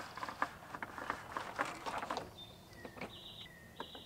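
Thule HideAway awning being wound closed with its extension tool: irregular clicks and rattles from the crank mechanism, thinning out about two seconds in. Birds sing high chirps and short trills in the second half.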